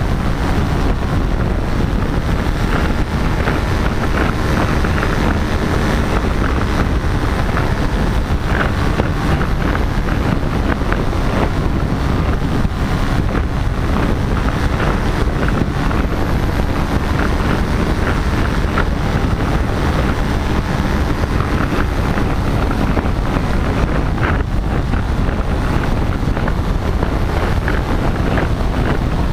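Paramotor engine and propeller running steadily in flight, mixed with heavy wind noise buffeting the microphone.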